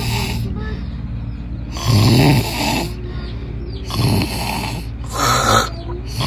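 A person snoring loudly: four harsh snores about one to two seconds apart, over a steady low background hum.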